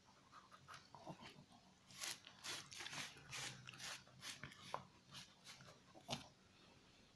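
Shih Tzu crunching and chewing cracker, a run of irregular crisp crunches starting about two seconds in and stopping near the end.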